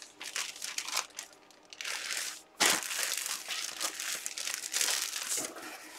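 Clear plastic bag crinkling as the jersey sealed inside it is handled and turned over, in irregular rustles with a short lull about a second and a half in.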